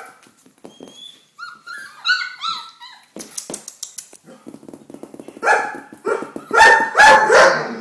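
Four-week-old Doberman pinscher puppies whining and yipping: a string of short, high squeals a couple of seconds in, then louder yelping barks near the end, with scratchy clicks between the calls.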